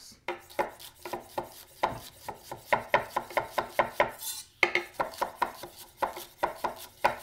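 Chef's knife slicing a celery stalk on a bias against a cutting board with a rocking motion: a steady run of crisp cuts, about three a second.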